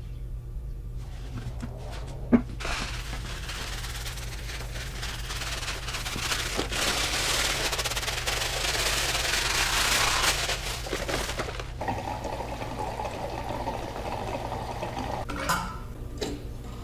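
Fuel pouring steadily into the stump grinder's gas tank, growing louder over about ten seconds and then stopping suddenly, over a steady low hum.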